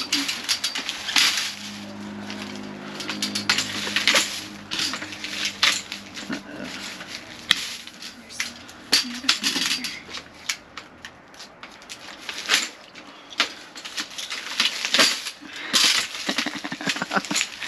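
Plastic bags and snack packaging crinkling and rustling, with many sharp clicks and clinks, as a reach-grabber tool picks through a dumpster full of bagged snacks and drinks. A low steady hum sits underneath for the first several seconds.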